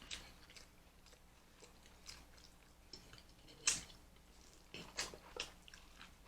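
A person chewing food close to the microphone, with scattered wet mouth clicks and smacks; a louder smack comes a little past halfway, a few more near the end.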